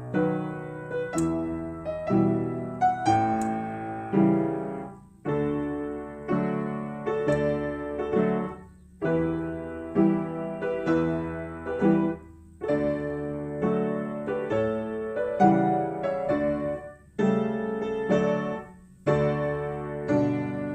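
Solo piano music played in short phrases of chords, each note struck sharply and fading, with brief pauses between phrases.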